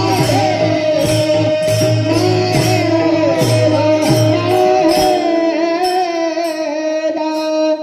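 Devotional abhang music: a sung line held on slowly wavering notes over rhythmic accompaniment. The beat drops out about five seconds in, leaving the held notes.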